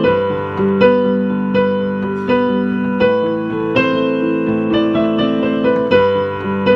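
Piano playing a slow, gentle original piece, one note struck about every three-quarters of a second over held lower notes, with a higher note recurring again and again.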